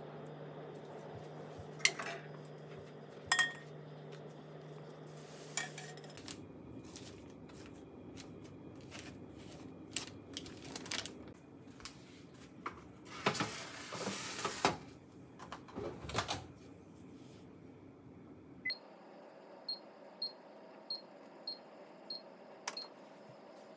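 Chopsticks clinking against a glass bowl over a steady low hum, then a metal tray clattering into an oven-microwave. Near the end, about six short high beeps a little over half a second apart as the Panasonic Bistro oven-microwave's touch panel is pressed to set an automatic cooking program.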